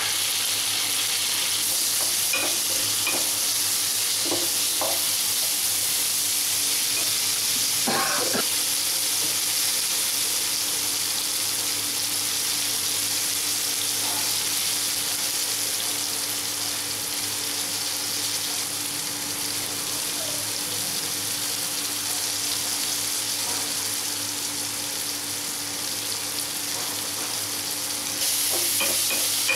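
Chopped tomatoes, onions and green chillies sizzling steadily in hot oil in a nonstick pan, with a plastic spatula stirring and knocking against the pan now and then. The sizzle gets louder near the end.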